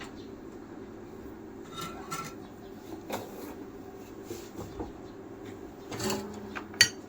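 Small hand tools clicking and tapping on a phone during repair work, over a steady low hum, with one sharper click near the end.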